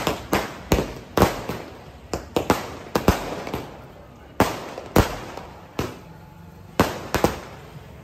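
Firecrackers going off on the road in a string of sharp, irregular bangs. They come thick and fast for the first few seconds, then thin out to single bangs about half a second to a second apart.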